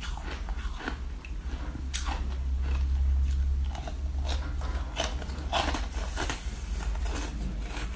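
Teeth biting into and crunching a ball of frozen shaved ice. Short crisp crackles come about two seconds in and again in a run from about four to six and a half seconds, over a steady low hum.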